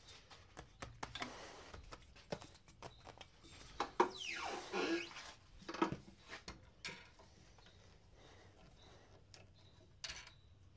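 Scattered clicks, knocks and rubbing from hands working a manual screen-printing press. About four seconds in there is a longer scrape with a falling squeak, and a sharper knock comes just before six seconds.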